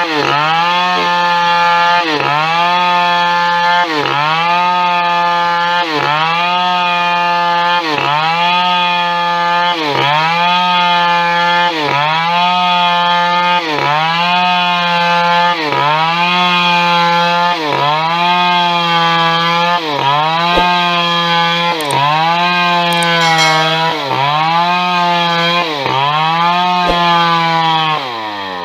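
Two-stroke chainsaw running at high revs while ripping a log lengthwise into boards, its pitch sagging and recovering about every two seconds as the cut loads the engine. At the very end the throttle is let off and the engine note falls away.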